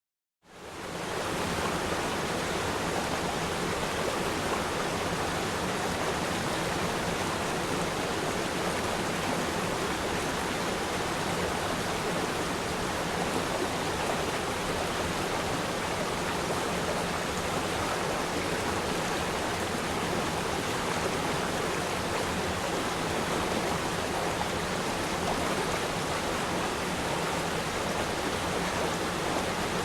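Waterfall: a steady, unbroken rush of falling water, fading in over the first second.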